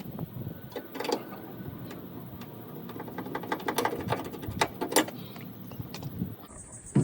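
Hammer knocking on a car's sheet-metal rear quarter panel, an irregular run of taps with a few louder strikes about a second in and near five seconds, as the dented panel is beaten back out.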